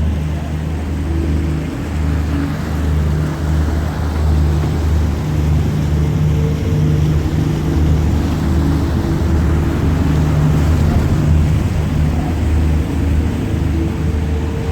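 Tour boat's engine running steadily with a deep, even hum, under a steady rushing noise.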